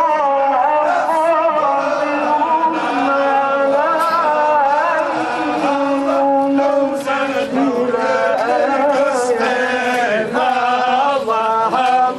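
Many men's voices chanting together in unison, a Muslim funeral chant, long held notes that rise and fall without pause.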